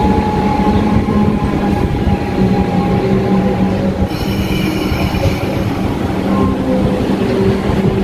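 Electric suburban train running slowly alongside the platform as it pulls in, with a steady rumble and motor whine. About four seconds in there is a brief high-pitched squeal from the wheels or brakes lasting about a second.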